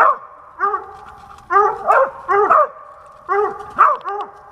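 Squirrel dog barking treed at the foot of a tree a squirrel has just climbed: a steady string of loud barks, about two a second.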